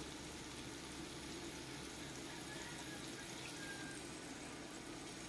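Ensabi greens simmering in a little liquid in a wok: a faint, steady bubbling sizzle.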